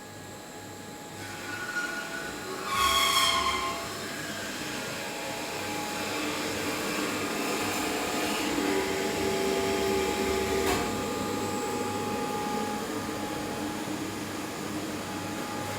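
Robotic MIG/MAG welding cell running: a brief falling whine about three seconds in, then a steady machine hiss, with a single click just past the middle.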